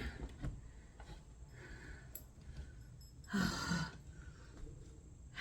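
A woman's breathing in a quiet room, with one short exhale carrying a little voice about three and a half seconds in, and a faint click around two seconds.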